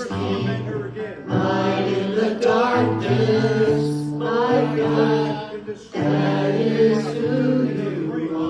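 Worship band and singers performing a gospel song, voices singing together over held keyboard and bass notes.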